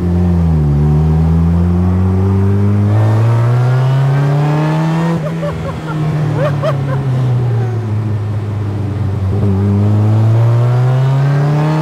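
Supercharged 2.0-litre four-cylinder engine of a DF Goblin kit car, built on a Cobalt SS drivetrain, pulling hard and heard from the open cockpit right in front of the engine. The revs dip just after the start, climb for about four seconds, fall away for about three, then climb again through a second pull.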